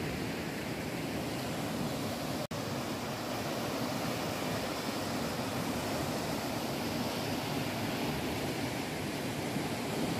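Steady rushing of a stream's rapids, an even wash of water noise with a momentary dropout about two and a half seconds in.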